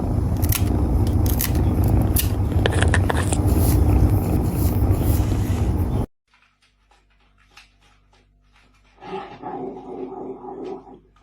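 A dog growling loud and close, cutting off suddenly about six seconds in; near the end a dog makes a quieter, pitched vocal sound for about two seconds.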